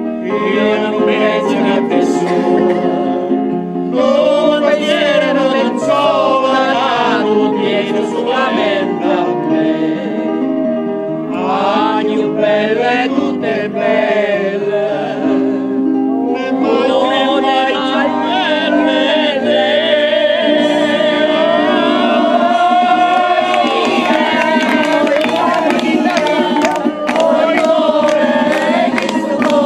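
Music with singing: voices sing a melody over held keyboard chords.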